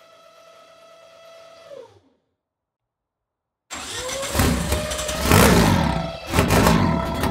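A 1G DSM's turbocharged 4G63 engine winding down and being started again: a whine fades and drops in pitch, stopping about two seconds in. After a break of dead silence, the engine cranks with a rising whine and starts up loudly, settling into an even beat near the end.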